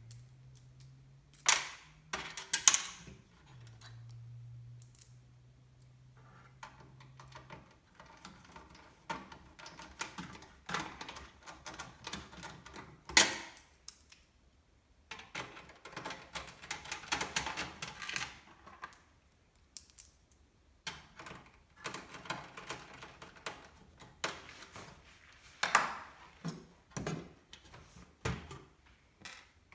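Computer parts being handled and fitted during a PC build: irregular clicks, knocks and rattling, with several sharp louder knocks and a faint low hum for the first several seconds.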